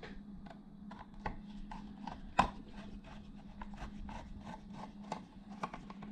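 Screwdriver turning a screw out of a perforated sheet-metal power supply case: a string of small irregular clicks and scrapes of metal on metal, with one sharper click about two and a half seconds in.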